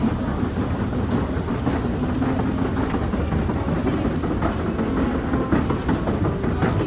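London Underground escalator machinery running with a steady low rumble, mixed with the footsteps and bustle of a crowd of commuters in a tiled station passage.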